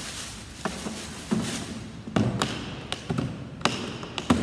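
Bricks being handled and set down out of a suitcase: about seven irregular knocks and taps.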